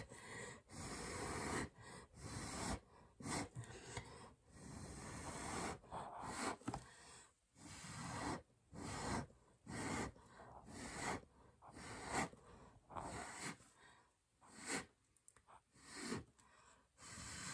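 Short puffs of breath blown onto wet poured acrylic paint, about one a second, pushing the paint outward to open a bloom.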